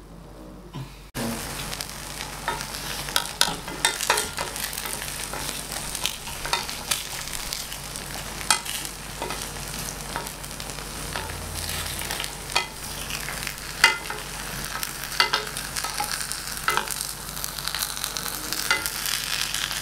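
Shredded potato frying in a pan of hot fat: a steady sizzle with frequent sharp pops and crackles. The sizzle starts suddenly about a second in.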